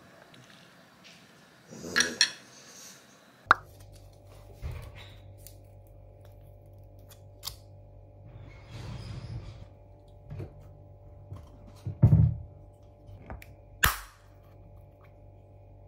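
A straw clinking against a glass jar of iced coffee as it is stirred. Then a steady electrical hum, with scattered clicks, taps and a thump as a pill crusher is handled and squeezed to crush a cat's tablet.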